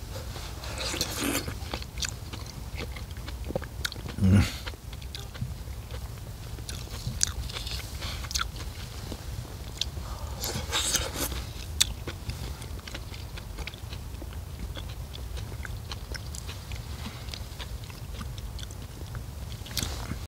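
Close-up chewing, with wet smacking clicks, as a man eats tangerine segments. A louder low thump sounds about four seconds in.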